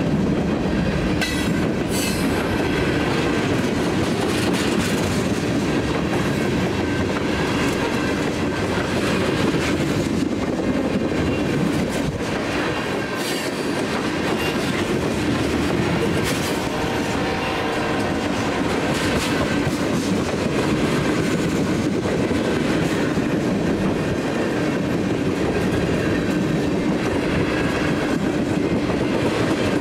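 A Canadian National freight train's cars rolling past at a steady loud level, with wheels clicking over the rail joints throughout.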